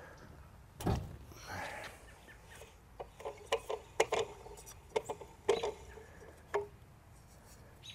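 Short clicks and knocks: a single knock about a second in, then a run of sharp clicks bunched between about three and seven seconds in, as the impeller of a Polaris PB4-60 booster pump is unscrewed by hand from its motor shaft.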